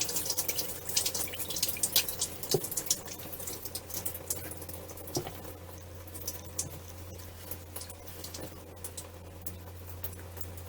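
Sandpaper rubbing by hand on the rusty metal hose connector of a Mercruiser engine, a run of short irregular scratching strokes that thin out after the first few seconds, over a steady low hum.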